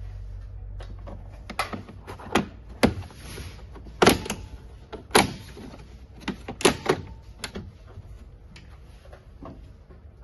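Plastic retaining clips of a Scania truck's inner door panel snapping loose as the panel is pried off, about a dozen sharp clicks and snaps, the loudest about four and five seconds in.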